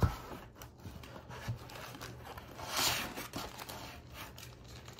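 Pokémon trading cards being handled: a knock right at the start, faint rustling, and a short scraping swish about three seconds in.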